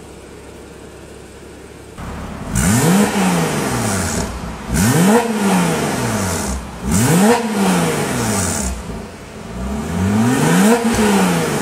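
Porsche Cayman 987.2 PDK flat-six engine with an Armytrix valved exhaust, valves closed, revved four times while stationary. Each rev climbs quickly in pitch and falls back to idle; the last one climbs more slowly.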